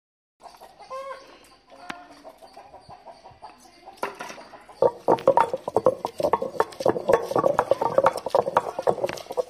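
Chickens clucking: a few separate calls at first, then louder and close-packed clucking from about five seconds in.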